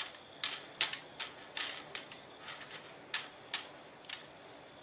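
A dozen or so light clicks at irregular intervals as an M1 Garand's gas cylinder lock is turned by hand onto the threaded end of the barrel, seating the gas cylinder.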